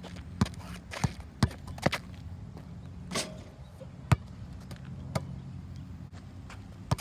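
Basketball being dribbled hard on a court: four quick bounces in the first two seconds, then single bounces about a second apart.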